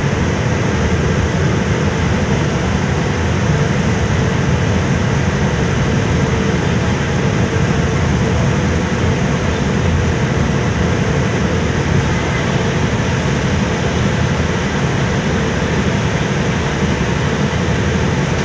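A car ferry's engines running steadily, a loud low rumble with faint steady tones over it, together with the rush of water churning in the wake behind the stern.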